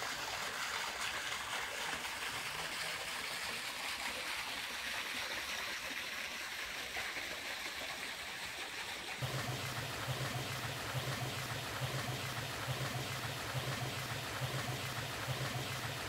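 Water running steadily; after a cut about nine seconds in, water pours from a hose into a large copper still pot, with a low pulsing hum underneath.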